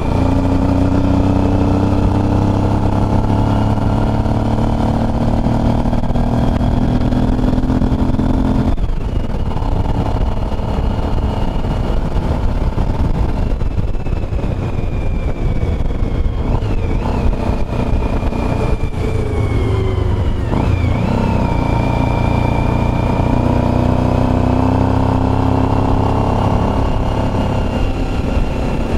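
Motorcycle engine running under way, its pitch gliding with the throttle. The note drops off sharply about nine seconds in, and again around twenty seconds in, like a gear change or roll-off, then climbs back. A steady low rumble of wind and road noise runs underneath.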